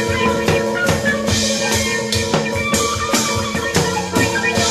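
Live jazz ensemble playing on a 1970s tape recording: busy trap-kit drumming and percussion over sustained, held tones from the pitched instruments, with no break.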